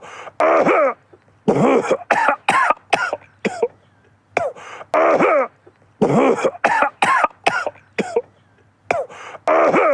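A man coughing again and again, in fits of two or three coughs with short pauses between them.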